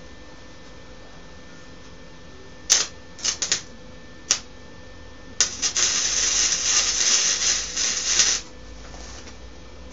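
Electric welding arc: a few short, sharp strikes and sputters, then about three seconds of steady crackling as a weld bead is run, cutting off sharply.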